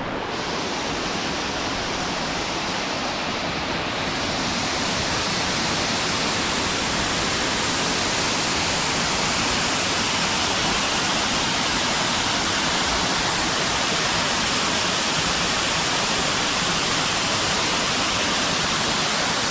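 Large waterfall pouring at high speed: a steady, full-range rush of falling water. The upper hiss grows a little louder about four seconds in.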